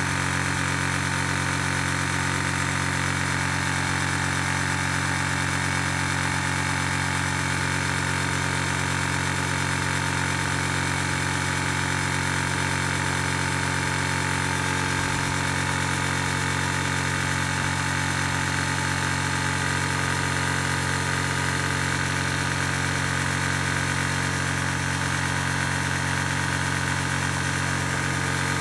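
Zhongyan high-pressure PCP air compressor running steadily under load, a constant even hum, partway through filling an 18 cubic inch tank at around 2500 psi.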